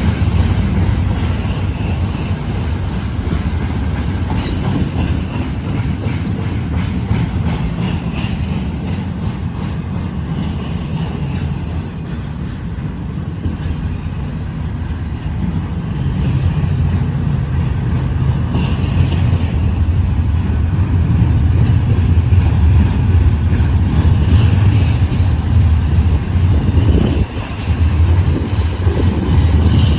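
Freight train rolling slowly past: a steady rumble of wheels on rail with runs of clicking over the rail joints, and wind rumbling on the microphone.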